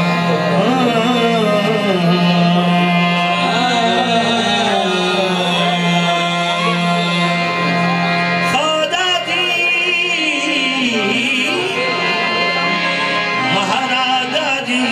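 Live qawwali: a harmonium holds a steady drone and melody under a lead singer's ornamented, gliding vocal line.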